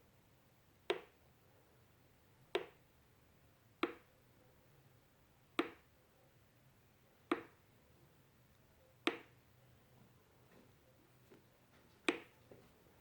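Koowheel electric skateboard making a sharp click about every one and a half to two seconds, seven clicks in all, with a longer gap before the last. The repeated clicking is the fault the owner is showing.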